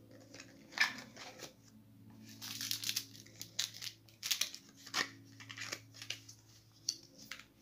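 Cube packaging being handled and pulled apart: the card box, paper insert and plastic sleeve rustle and crinkle in a run of irregular crackles and taps. The sharpest comes about a second in.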